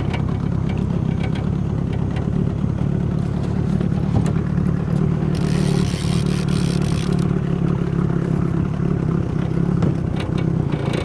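Boat's outboard motor running steadily, with a brief hiss lasting about two seconds about five seconds in.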